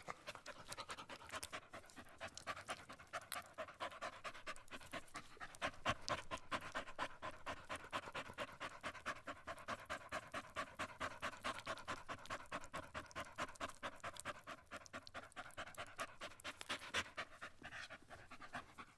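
A dog panting rapidly and steadily, several quick breaths a second in an even rhythm.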